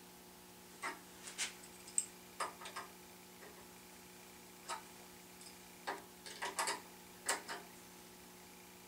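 Small adjustable wrench clicking against the steel feed handles and hub of a drill press as the handles are tightened: about a dozen sharp, irregular clicks in small clusters, over a faint steady hum.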